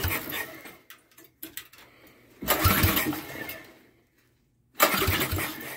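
Small go-kart engine being pull-started three times, about two and a half seconds apart. Each pull cranks it over with a brief sputter that dies away; it does not catch and keep running.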